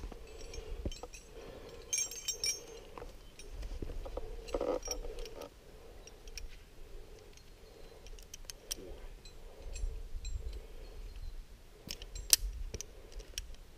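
Metal climbing gear clinking and clicking at irregular moments as a figure-eight descender and carabiners are handled to set up a rappel.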